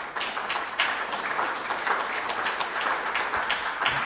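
Audience applauding: many hands clapping at once, steadily.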